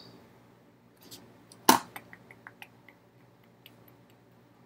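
Computer mouse handled at a desk: one sharp click a little under two seconds in, followed by a run of faint ticks about five a second, over a low steady room hum.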